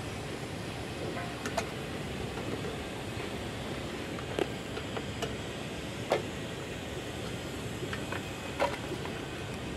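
Small sharp clicks and taps, scattered and irregular, as a line-tester screwdriver pries at the seam of a CNC controller's case to open it. The clicks sit over steady background noise.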